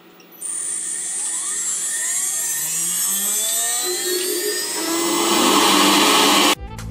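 CNC router's spindle motor starting and spinning up: a high whine with many tones gliding upward in pitch over several seconds. It cuts off suddenly near the end.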